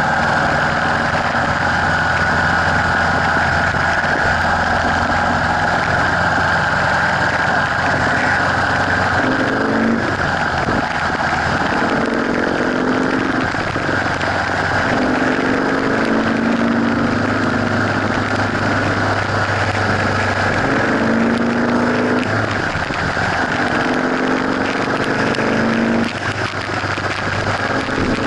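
Motorcycle engine running at freeway speed under a steady rush of wind and road noise. From about a third of the way in, the engine's pitch repeatedly rises and drops back every few seconds.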